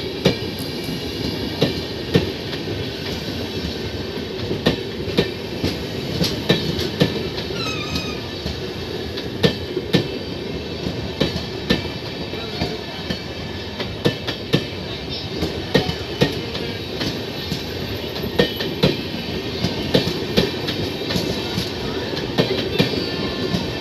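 Hemkunt Express passenger coaches rolling past on departure. The running gear gives a steady rumble, broken by irregular sharp clicks as the wheels cross rail joints.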